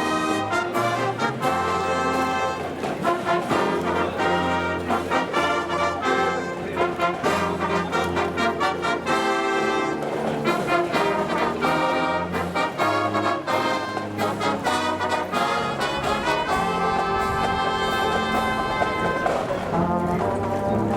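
Marching band playing a tune, led by trumpets and trombones, with a low bass line underneath.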